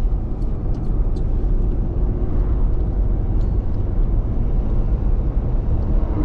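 Steady low rumble of a vehicle driving, engine and road noise heard from inside the cab, with a few faint scattered ticks.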